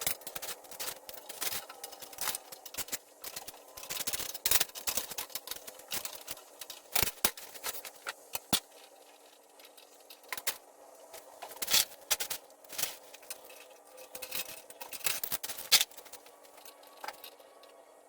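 Irregular clicks, clinks and scrapes of hand tools and small metal parts being handled while taking apart a mini bike, some clicks coming in quick runs.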